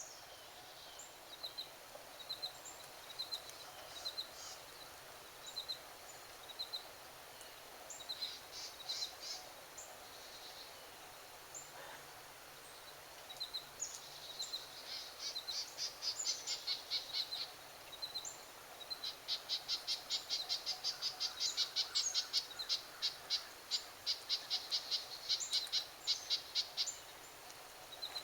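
Small animals calling outdoors, frogs or birds: short high chirps about once a second, then from about halfway through rapid trains of high clicking chirps, several a second, getting louder and busier.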